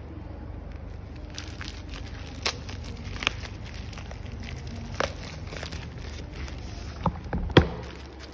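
Bubble-lined plastic mailer bag crinkling as hands handle and pull it open, with scattered sharp crackles, the loudest near the end.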